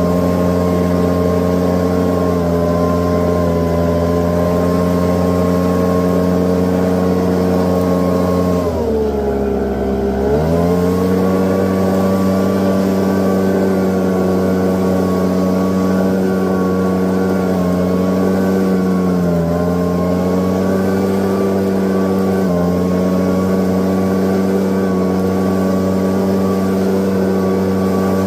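Gas-powered leaf blower running at high throttle, its engine note steady apart from a brief drop in speed about nine seconds in that picks back up, and a couple of smaller dips later.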